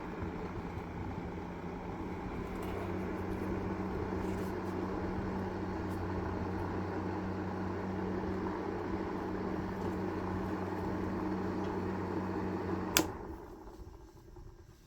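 Small electric fan motor of a homemade miniature air conditioner model running with a steady hum and whir. About thirteen seconds in, a sharp click switches it off and the sound winds down.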